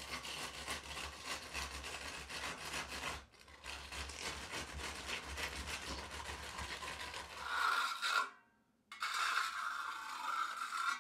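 A wooden 2x4 screed board dragged and worked back and forth across wet concrete, a fast rasping scrape as the overfilled top is struck off level. After a brief break near the end, a smoother scraping of a hand trowel across the wet surface.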